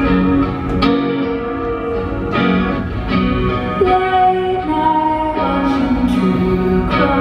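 Live indie band music: an electric guitar with effects rings out chords over bass and drums, with new chords struck every second or so.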